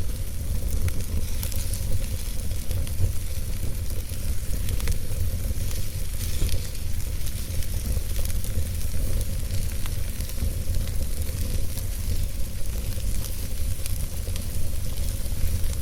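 Wood logs burning in a fireplace: a steady low rumble of flame and a hiss, with scattered small crackles and pops.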